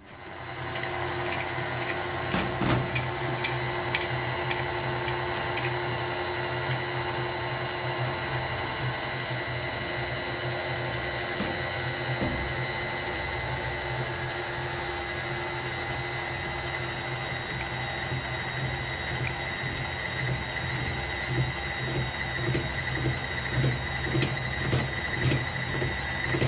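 KitchenAid Artisan stand mixer starting up and running steadily with its paddle attachment, a steady motor whine and hum as it beats butter, sugar, flour and cinnamon into cookie dough. Near the end a rhythmic thudding joins in as the dough clumps and the paddle slaps through it.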